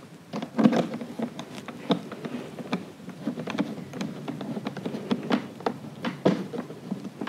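Flathead screwdriver tightening the screw of a Honda EU22i inverter generator's maintenance cover: a run of small, irregular clicks and scrapes as the blade turns in the screw head.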